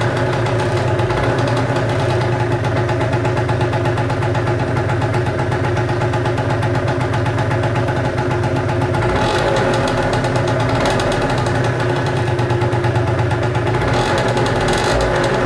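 Gilera Runner SP 50's two-stroke single-cylinder engine idling at standstill through its stock exhaust, running mostly steady with a slight waver in pitch about two-thirds of the way through.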